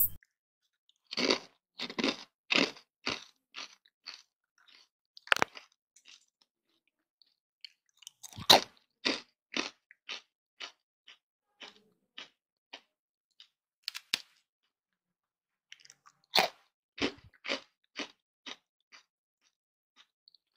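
Crisp deep-fried namak pare crunching: three runs, each a loud crack followed by softer crunches about twice a second that fade away.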